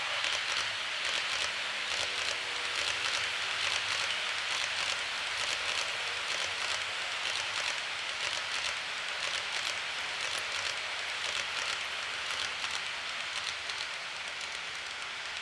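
Tomix N-gauge model of an E231-0 series electric commuter train running along the track: wheels clicking and rattling over the rail joints in a dense, fast patter over a steady hiss of running noise.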